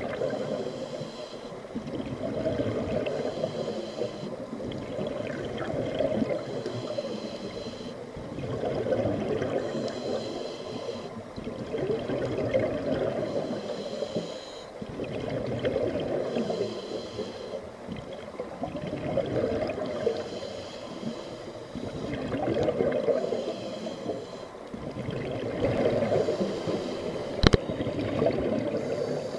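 Scuba regulator breathing underwater: exhaled bubbles burble out in swells about every three seconds. One sharp knock comes near the end.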